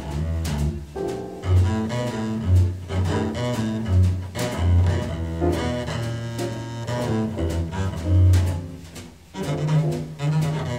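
Jazz quartet recording with the double bass out front, playing a line of deep, distinct notes while the band accompanies, with cymbal strokes on top.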